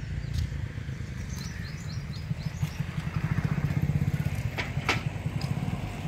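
A motorcycle engine running on the road, growing louder toward the middle and then easing off, with a few short high chirps a second or two in and two sharp clicks near the end.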